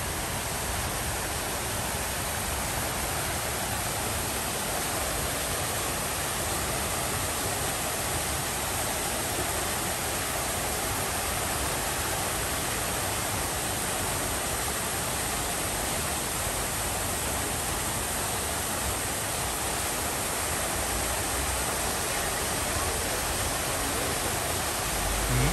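Fountain water splashing into its basin: a steady, even rushing that does not change.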